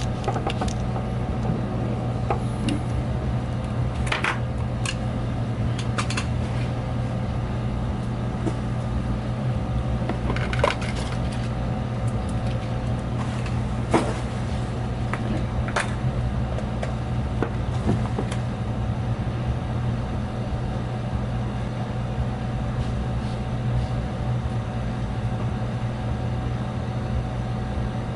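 A steady low hum, with scattered small clicks and taps of a hex driver and plastic DJI Phantom 4 gimbal parts being handled through roughly the first eighteen seconds, after which only the hum remains.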